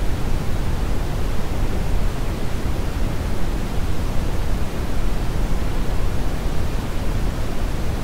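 Calibrated brown noise test signal: a steady, unbroken hiss-like rumble, strongest in the bass and falling away toward the treble.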